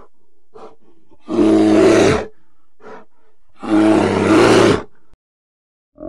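Bear vocalising: short soft huffs, then two loud growls about a second long each, one starting a little over a second in and the other about halfway through, with a further huff between them. The sound cuts off abruptly near the end.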